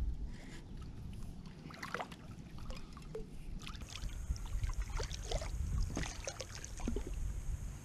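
A blue catfish splashing at the surface beside a plastic kayak as it is brought alongside, with scattered short splashes and knocks over a steady low rumble.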